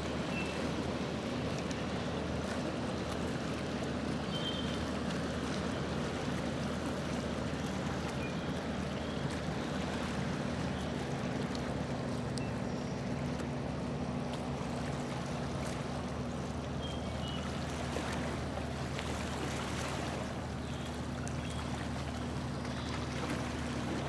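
Motor of a small boat running steadily under way at an even pitch, over a steady rush of water and wind.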